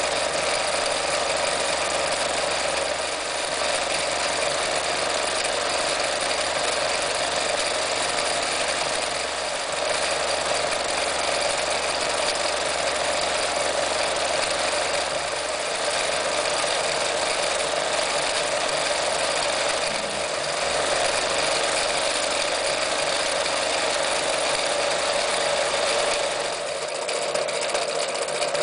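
Necchi Lydia 544 electric sewing machine running at a steady speed, stitching a zigzag-type decorative stitch through fabric. The run eases off briefly a few times, most clearly a little before the end.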